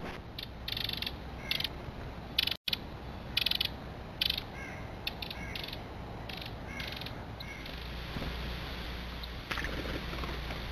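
Short, harsh, raspy bird calls, repeated a dozen or so times over the first seven seconds, over the steady rush of a small creek.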